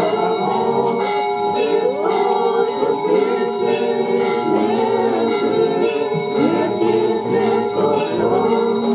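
Church bells ringing in repeated strikes, their tones ringing on over one another, while a crowd sings.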